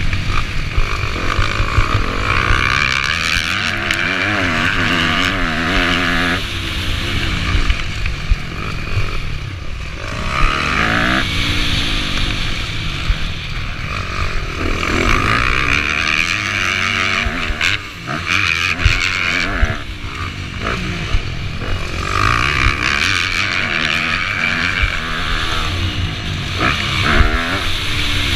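Motocross bike engine revving hard, rising and falling again and again through gear changes as the bike is ridden round a dirt track, heard from a helmet-mounted camera with wind buffeting the microphone.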